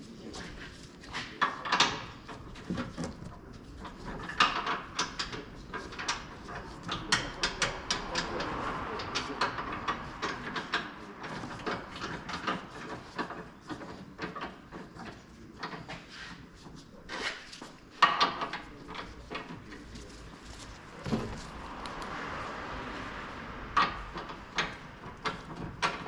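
Hand-tool work on a car's underbody: an irregular string of sharp clicks, knocks and clanks, with stretches of scraping or rasping in between.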